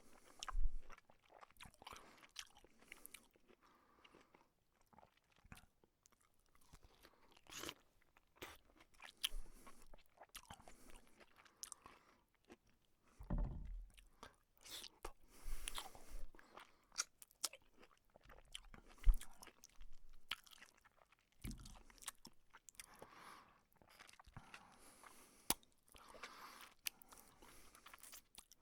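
A person biting into and chewing a juicy piece of fruit: irregular crunching bites and wet chewing, in short bursts with pauses between.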